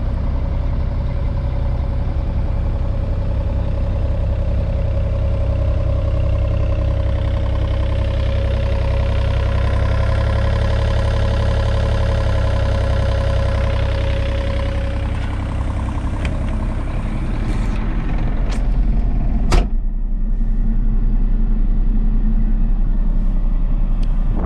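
John Deere 35G mini excavator's diesel engine running steadily. A few clicks come about sixteen to eighteen seconds in, then a sharper knock.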